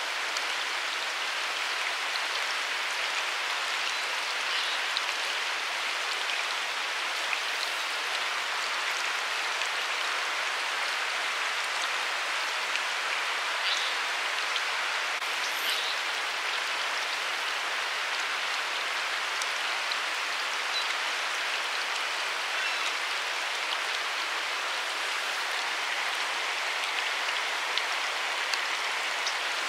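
Steady hiss of water with a few faint, scattered ticks.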